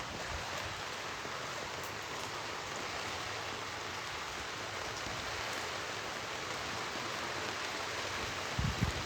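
Heavy rain in strong wind: a steady, even rushing hiss, with a few low thumps near the end.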